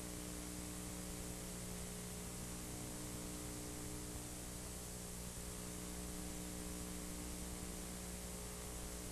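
Steady electrical mains hum with a ladder of overtones over an even hiss of recording noise; nothing else sounds.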